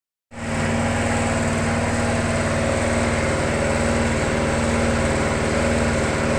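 A machine motor running at a steady speed: a steady hum over a fast, even low pulsing, most likely the baler's power unit running.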